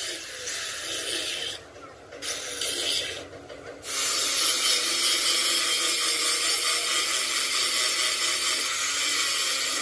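Steady rasping, hissing noise of metal being worked, broken off twice briefly in the first four seconds, then running steadily.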